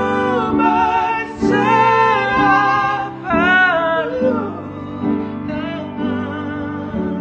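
Two men singing a Christian worship song as a duet, holding long notes with vibrato between short breaks for breath.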